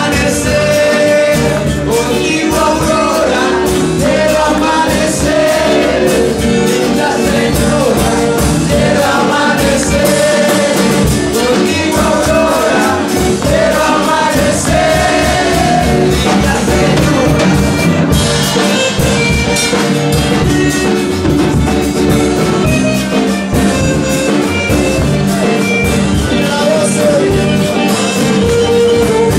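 Live band playing a traditional Chocó porro, a loud continuous rhythmic groove with melody lines over drums and bass.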